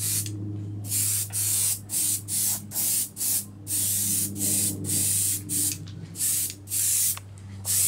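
Airbrush spraying air and paint in about a dozen short hissing blasts, one after another, while it is flushed out to clear it of acrylic paint before it can clog. A steady low hum runs underneath.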